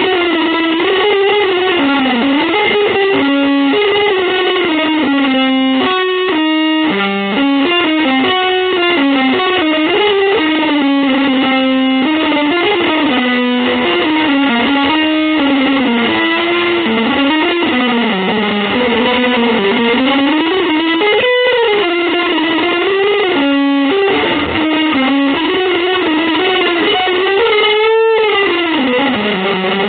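Electric guitar with distortion playing one continuous legato melodic line that slides up and down in pitch between sustained notes.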